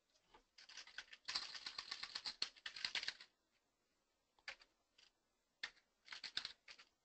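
Typing on a computer keyboard: a fast run of keystrokes lasting about three seconds, then a few scattered key presses.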